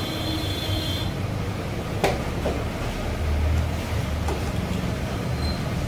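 Low, steady background rumble that swells and fades, with one sharp metallic click about two seconds in and a fainter one just after, as engine parts are handled on the bench.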